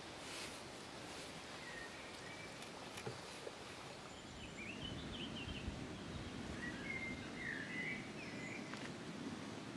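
Quiet outdoor ambience: a steady rushing background noise, with a few short bird calls chirping about two, five and seven seconds in.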